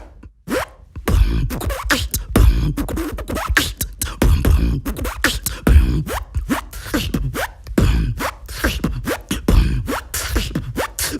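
Human beatboxing: a fast rhythmic pattern of sharp mouth clicks and hits over recurring deep bass kicks, with quick falling pitch sweeps, starting about a second in.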